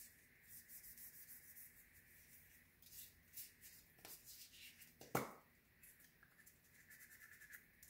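Near silence: faint rubbing of hands working in foam hand cleaner, with one short click about five seconds in.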